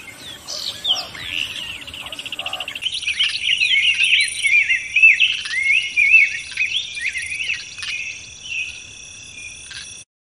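Many songbirds chirping and trilling, with quick rising and falling calls and one rapid trill. A steady high insect drone comes in about three seconds in. The sound cuts off just before the end.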